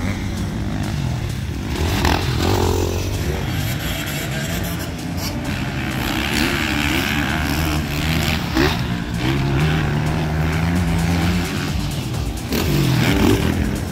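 Motocross dirt bike engines revving on the track, the pitch rising and falling as the riders work the throttle. It is loudest near the end.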